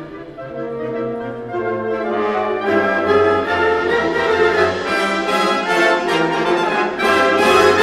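Orchestra playing a classical overture live, brass to the fore: it starts softly on held notes and swells into full sustained chords about three seconds in.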